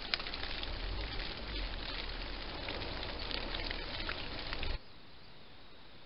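Crackling rustle of dry straw and leaves with many small clicks as a hedgehog pushes through it, stopping suddenly about three-quarters of the way in and leaving a faint steady hiss.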